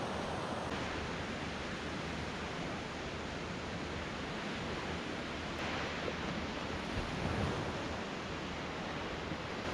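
Surf washing steadily onto a sandy beach, a constant rushing hiss.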